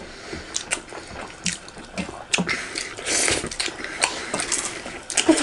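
Close-up eating sounds from two people eating rice and curry by hand: wet chewing and lip smacks in a run of short clicks, with fingers mixing food on metal plates and a brief hissing slurp about three seconds in.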